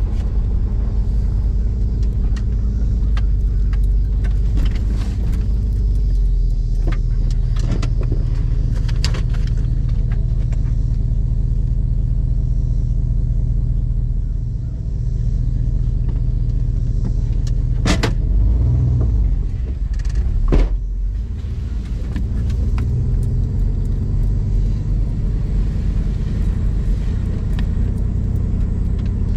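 Truck engine running with a steady low rumble, dipping briefly near the middle. About two-thirds through, two sharp clanks come a couple of seconds apart.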